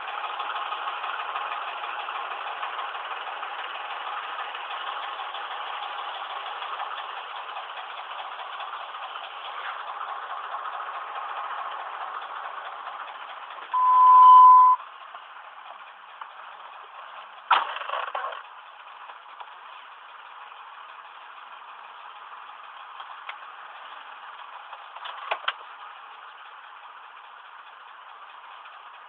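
Ford 5.4-litre three-valve Triton V8 in a 2005 Expedition idling roughly, which the owner puts down to failing VCT solenoids. A single steady beep sounds about halfway through, then a sharp knock, after which the engine is quieter.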